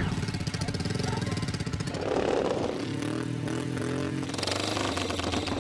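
A racing lawn mower's small engine running, a fast, even buzz of firing pulses whose pitch wavers around the middle.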